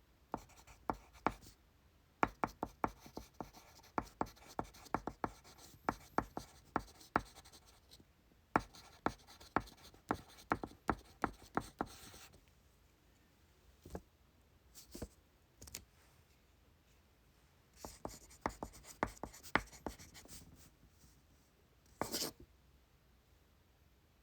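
Pencil writing on paper: a dense run of quick scratchy strokes and taps for about twelve seconds, a few scattered strokes, then another short burst of writing. A brief sharper scrape comes near the end.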